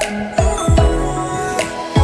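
Background music: an electronic beat with deep bass hits that slide down in pitch, sharp high ticks and held tones.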